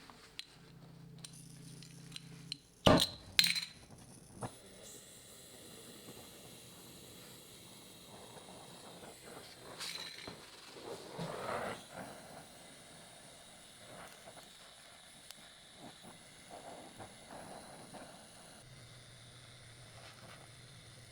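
Sharp metal clinks and clanks, a loud cluster about three seconds in, followed by quieter scraping and handling sounds. A low steady hum runs underneath at the start and again near the end.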